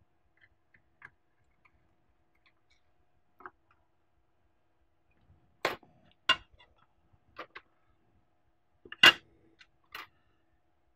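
Scattered light clicks and taps of tiny screws and a small precision screwdriver being handled: set down on a stone worktop and picked from a plastic parts tray while a graphics-card waterblock is screwed on. About seven clicks, spread out, the loudest a little after nine seconds in.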